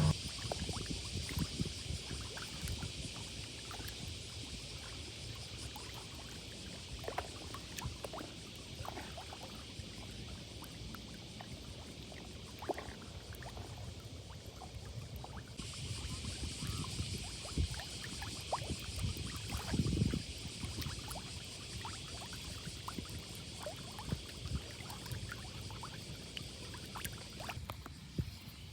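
Small sea waves lapping at the shore under a steady high hiss, with scattered small crackles and knocks. The background changes abruptly about halfway through.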